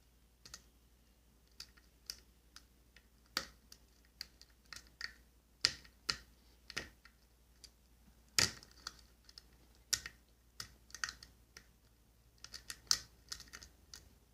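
Faint, irregular metallic clicks of a straight flag pick working the pins of an ISEO R6 dimple lock under light tension from a Z-wrench, the pick clicking against pins in the keyway as they are lifted and set.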